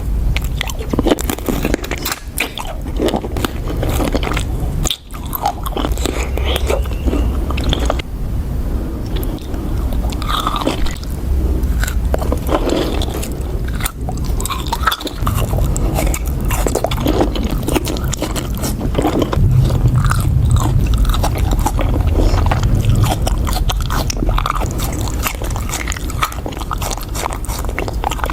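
Close-miked biting and chewing of fresh fruit, with crisp crunches and wet mouth sounds in an irregular stream. There is a brief break about five seconds in.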